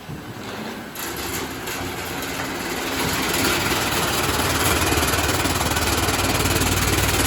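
Anzai LEO-300D5 colour sorting machine running as fried potato passes through it: a steady mechanical rumble and hiss. It comes in about a second in and builds over the next two seconds, then holds steady.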